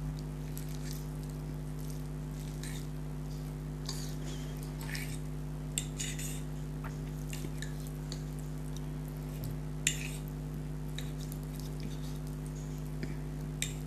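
A person eating instant noodles close to the microphone: short, scattered chewing and slurping sounds with a few sharp clicks, over a steady low hum.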